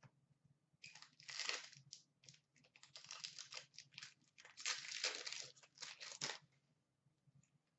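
Trading card pack wrapper crinkling and tearing as a pack of hockey cards is opened, in irregular crackly bursts from about a second in until near the end.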